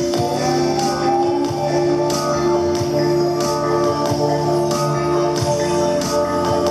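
Background music: long sustained drone tones with a steady beat of percussion hits, about two a second.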